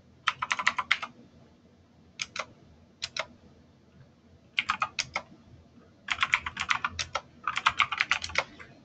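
Typing on a computer keyboard in bursts of quick keystrokes with pauses between: a run of keys about a second long, a couple of pairs of taps around two and three seconds in, then three more runs in the second half.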